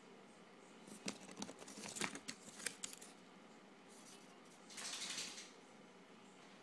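Faint, irregular clicks and scratches for about two seconds, then a short rustle: a kitten's claws and paw working at the edge of a wicker basket's window opening.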